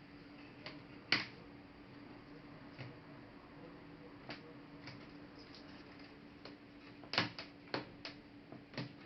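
Irregular light clicks and taps of a Toshiba Satellite A300 laptop's plastic case and parts being handled during disassembly. The loudest click comes about a second in, and a cluster of clicks comes near the end, over a faint steady hum.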